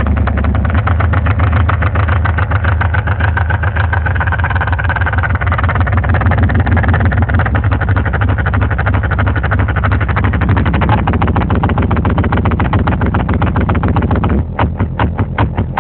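Bass-heavy music played loud through a car sound system with a box of two subwoofers; the deep bass is the loudest part. About a second before the end the music thins to a sparser, evenly pulsing beat.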